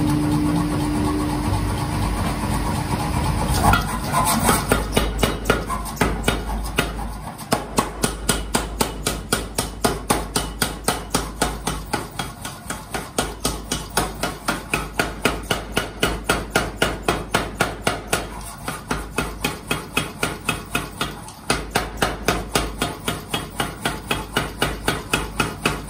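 Mechanical power hammer pounding a red-hot steel axe head: a fast, even run of heavy blows, several a second, with a few short breaks. For the first few seconds there is only a steady machine hum before the hammering starts.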